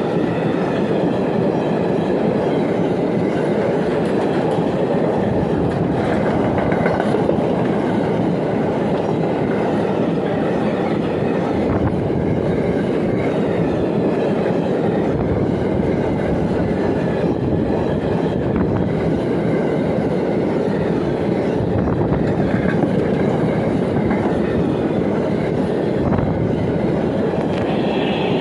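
A freight train of empty double-deck car-transporter wagons rolling past close by: a steady rumble of steel wheels on the rails.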